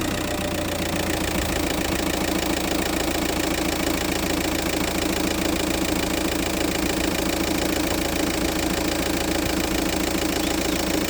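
2009 Seat Leon engine idling steadily just after starting, with its drive belt taken off. The noise it had is gone with the belt off, which points to the air-conditioning compressor pulley as the source.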